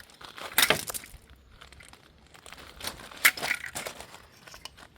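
Broken plastic parts of a smashed camcorder being handled, crackling and crunching, with sharp knocks about half a second in and again, loudest, just after three seconds.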